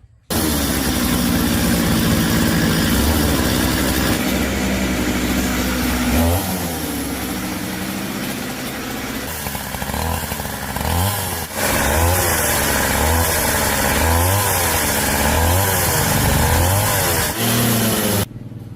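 Restored Stihl 08S two-stroke chainsaw engine running, steady at first, then revved up and down repeatedly, about once a second, from around six seconds in. The sound cuts off suddenly near the end.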